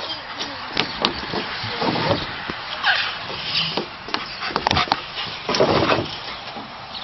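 A toddler's footsteps with light knocks and scuffs on wooden deck boards, irregular and scattered, with a longer noisy burst near the end.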